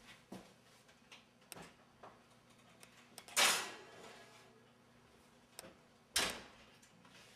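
A round metal cake pan set onto a wire oven rack with a loud scrape about three and a half seconds in, then the wall oven's door shut with a sharp thump about six seconds in.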